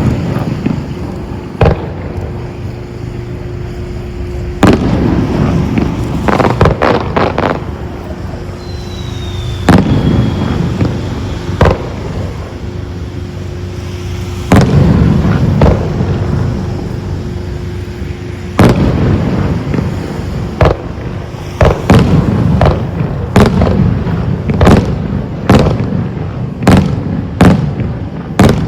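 Aerial fireworks shells bursting with loud booms, several followed by crackling trails. The bursts come every few seconds at first, then in a rapid string over the last several seconds. A steady low hum runs underneath.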